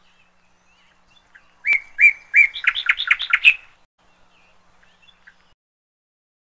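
A bird calling loudly: three clear whistled notes, then a quickening run of about eight shorter, sharper notes, all within about two seconds, starting about a second and a half in.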